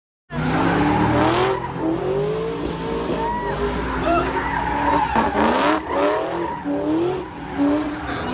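Ford Mustang doing a burnout, its rear tires squealing as it spins them while the engine revs rise and fall over and over. The sound cuts in suddenly just after the start.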